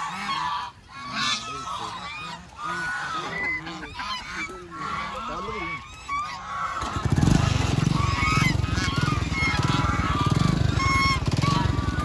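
A flock of domestic ducks feeding on scattered grain, calling over one another in a busy chorus of short honking quacks. About seven seconds in, a loud low rumble starts and continues under the calls.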